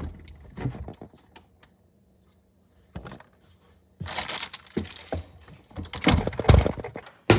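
Rummaging in a refrigerator: clicks and knocks of jars and bottles being moved on the shelves, with rustling. There are scattered clicks at first, a brief lull, then a busier stretch of knocks from about four seconds in, ending in a sharp knock.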